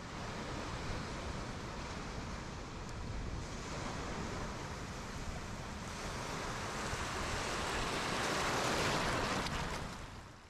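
Ocean surf rushing onto a beach: a steady wash of breaking waves that swells near the end and then fades out.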